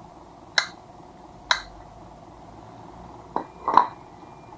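Metal clinks and knocks of an EFI throttle body being handled and set down on a tiled floor: two sharp clinks about a second apart, then a short cluster of knocks near the end, the loudest of them.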